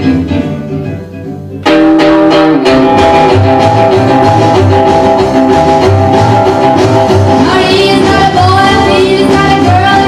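Recorded music: one track fades out, then a new song starts abruptly about two seconds in, a full band with guitar, and a singing voice comes in near the end.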